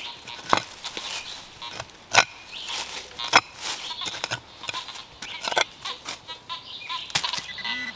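Digging in stony forest soil: irregular sharp crunches and knocks, about one or two a second, with a few faint short tones between them.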